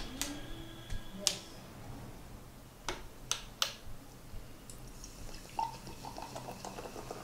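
Sharp clicks, about six at irregular intervals over the first four seconds, then a faint run of quicker ticks near the end.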